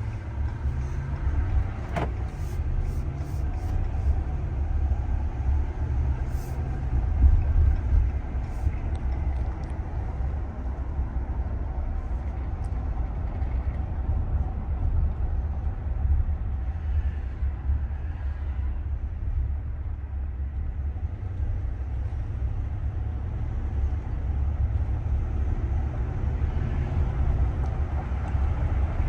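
Cabin noise of a 2023 Ram 1500 Limited pickup on the move: a steady low rumble of road and engine from its 5.7-litre HEMI V8, with a single sharp click about two seconds in.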